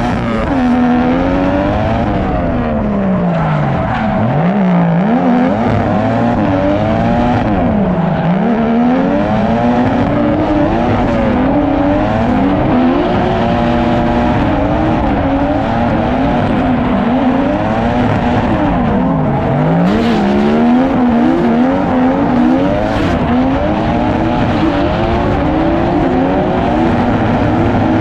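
Nissan Silvia drift car and chasing Nissan 370Z sliding in tandem, engine revs rising and falling again and again, every couple of seconds, with tyres squealing.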